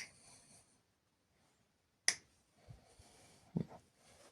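A sharp snap of Knipex pliers cutting through the kill-switch's wiring about two seconds in, followed by a couple of small dull knocks of handling.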